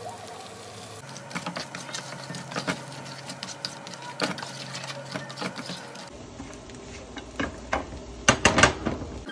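Beaten eggs and dried beef sizzling in a frying pan, with a spatula repeatedly scraping and knocking against the pan as the scramble is stirred; a quick run of louder knocks comes near the end.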